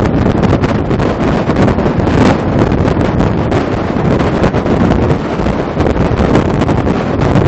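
Heavy wind buffeting an exposed microphone, rising and falling in gusts, from riding at highway speed on top of a haul truck carried on a lowbed trailer, with the rumble of the rig underneath.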